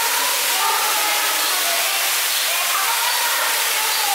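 Steady rushing hiss of falling water from a waterfall or water feature into a pond, with faint voices in the background.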